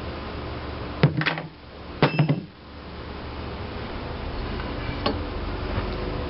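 Heavy cast-iron engine parts clanking against the steel press: two loud metal clanks with a short ring about a second apart, then a lighter click, over a steady low hum.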